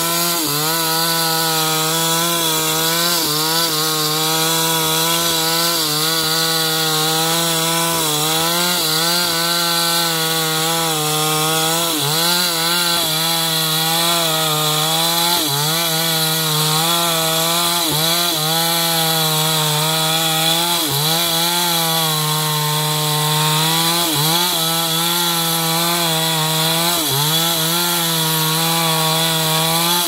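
Chainsaw running at high revs while cutting through timber, its engine note dipping briefly under load and recovering every couple of seconds.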